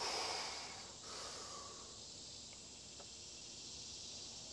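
A man breathing hard from the exertion of pistol squats: a breath of about a second at the start, a second shorter one just after, then a faint click about three seconds in.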